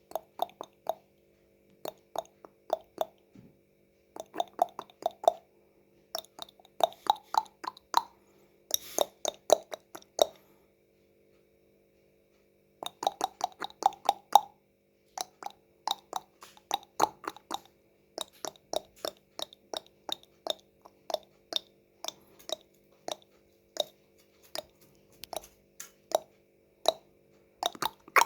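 Mouth sounds made by a person: sharp tongue clicks and pops in quick runs of several, with short pauses between runs and a longer pause of about two seconds near the middle. A faint steady hum lies underneath.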